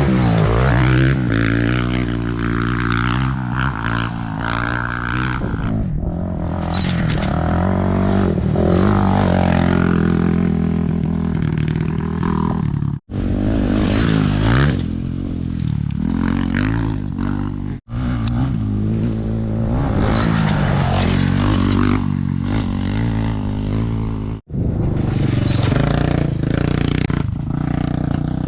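Off-road motorcycle and ATV race engines revving hard, their pitch rising and falling through the gears, with some clattering. The sound breaks off for an instant three times.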